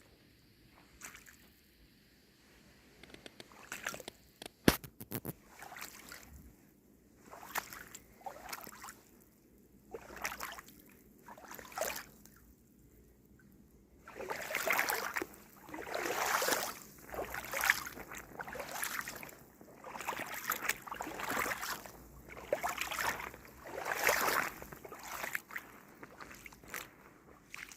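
Footsteps in waterproof boots sloshing through shallow floodwater, about one step a second, faint at first and much louder from about halfway on. A single sharp click near the start.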